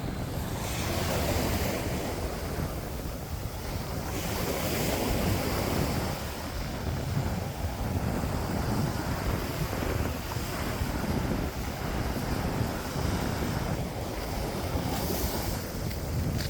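Ocean waves washing onto a beach, with wind buffeting the microphone in a low, gusting rumble.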